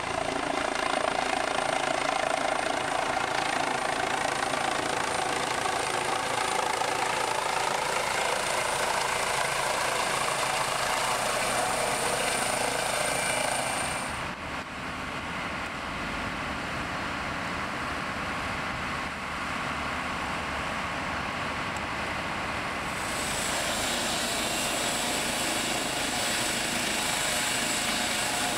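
Rescue helicopter running on the ground: steady rotor and engine noise with a high turbine whine over it. About halfway through the whine drops away and a lower, steadier engine noise is left for several seconds, then the whine comes back near the end.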